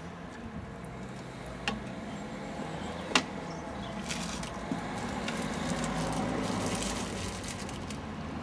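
A vehicle passing on the street, its noise swelling over a few seconds and fading again, with a sharp click a little after three seconds in.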